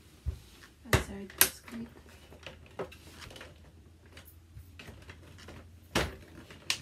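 Hard plastic parts of a Frozen 2 Arendelle Castle toy dollhouse knocking and clicking as they are handled and snapped together: a handful of sharp separate clicks, two close together about a second in and another loud one about six seconds in.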